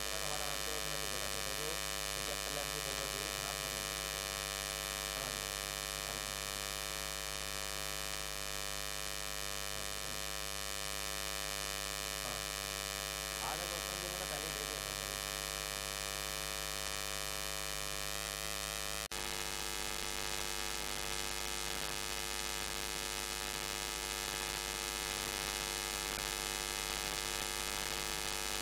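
Steady electrical buzz with many evenly spaced overtones, interference from the inverter that powers the lights. About two-thirds of the way in it glitches for an instant and comes back with a slightly changed tone.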